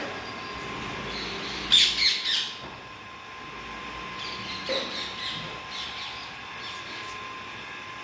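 Parrot calling: a loud burst of about three short squawks about two seconds in, then a softer run of short chirps around the middle.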